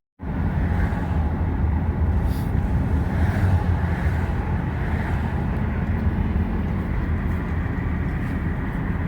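Ford Fusion running steadily after its power steering rack replacement: an even, unchanging low hum.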